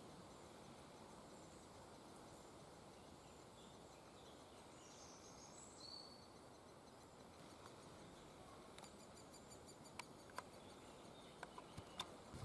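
Faint, rapid high chirping of great spotted woodpecker nestlings in the nest hole over a low background hiss, with a few sharp clicks near the end.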